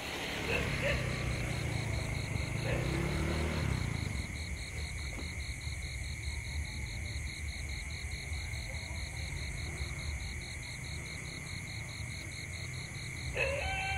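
Night insects chirping steadily: a fast, evenly pulsing high chirp over a steady high-pitched tone. A low rumble is heard during the first few seconds, and a short call near the end.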